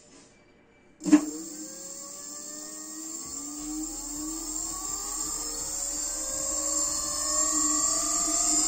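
Electric scooter hub motor spinning up under the thumb throttle: a sharp clunk about a second in, then a whine that rises steadily in pitch and grows louder as the wheel gathers speed.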